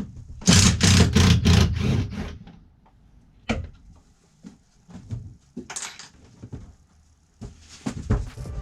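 Wire-fishing rod being pushed and worked through a drilled hole: about six quick rasping scrapes in the first two seconds, then scattered clicks and knocks.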